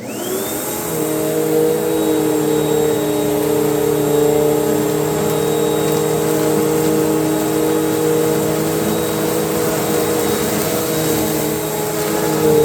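Panasonic cord-reel upright vacuum cleaner switched on, its motor spinning up with a rising whine over about the first second, then running steadily.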